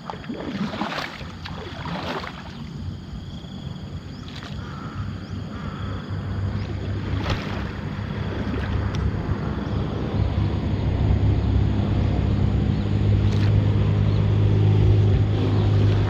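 Small boat's engine running with a steady low hum, getting louder over the stretch. A few sharp knocks come in the first half.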